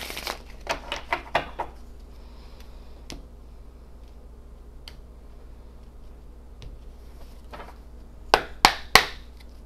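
Tarot cards being shuffled and handled: a quick run of card clicks at the start, a few faint ticks, then three sharp card snaps near the end.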